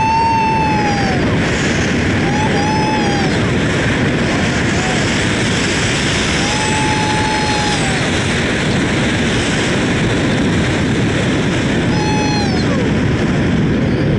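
Strong wind rushing over the microphone of a camera flying with a tandem paraglider, a steady loud noise with no let-up. Four short high-pitched sounds rise and fall over it: near the start, about three seconds in, around seven seconds and near the end.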